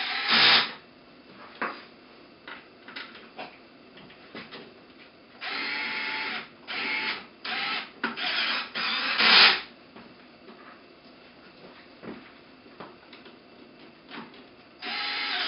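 Cordless drill-driver running in short bursts as it drives the screws that hold a small Kaplan turbine in its housing. There is one brief run near the start, a cluster of four or five runs in the middle, and another run near the end, with small handling clicks in between.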